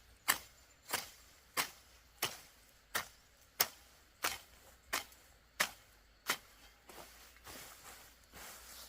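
A hand hoe chopping into soil with even, regular strokes, about ten strikes roughly two-thirds of a second apart. The strikes stop about six seconds in, giving way to softer scraping and rustling.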